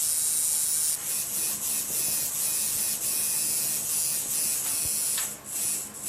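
Electric tattoo machine buzzing steadily with a bright hiss, faltering briefly a few times and cutting out twice near the end.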